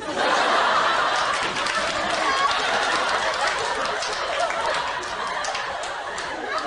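Audience laughing and clapping. The laughter starts abruptly and eases off slightly over several seconds.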